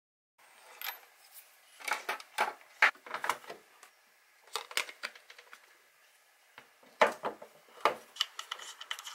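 Irregular clicking and tapping of hard plastic parts being handled: a 3D-printed brake disc and caliper fitted onto a radio-controlled car's wheel hub, and the wheel handled by hand. The taps come in two clusters, the sharpest about three seconds and seven seconds in.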